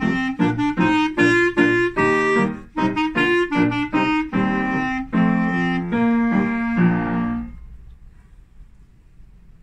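Clarinet playing a quick run of short, separated notes over piano accompaniment, closing on a few longer notes: the end of the piece. The music stops about seven and a half seconds in, leaving only faint room noise.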